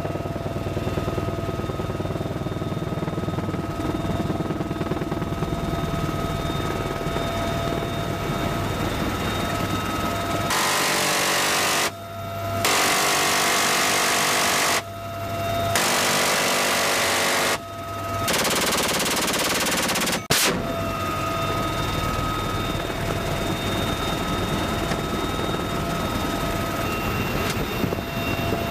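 Steady helicopter rotor and turbine noise with a high whine, heard from inside the cabin with the door open. About a third of the way in, a door-mounted six-barrel rotary minigun fires four bursts. Each burst is a continuous buzz of about two seconds, and a single sharp click follows the last.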